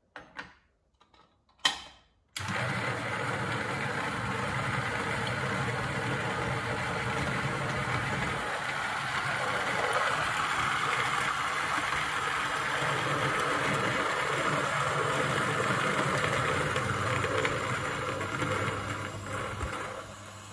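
A few light clicks as the dosing cup is set in place, then a Niche Zero coffee grinder starts about two seconds in and runs steadily, grinding a 20 g single dose of espresso beans through its conical burrs. The grinding grows noticeably quieter near the end.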